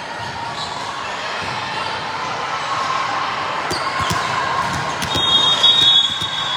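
Indoor basketball game sounds: a ball bouncing on the hardwood floor in a large echoing gym over a steady murmur. About five seconds in, a high steady squeal starts and holds for over a second.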